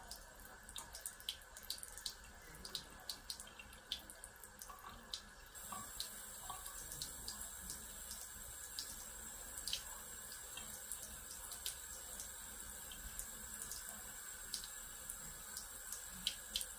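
Faint running water from a bathroom sink tap, with many small wet clicks and squelches from hands working foaming face wash over a wet face. The running water gets a little louder about five seconds in.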